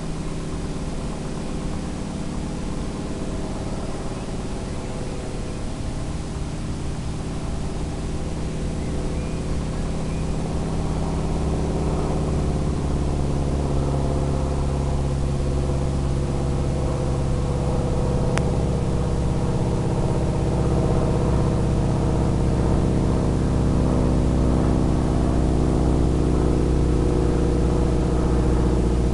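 FPV multicopter's electric motors and propellers droning steadily in low, slow flight, a stack of steady tones that wavers a little with throttle and grows gradually louder.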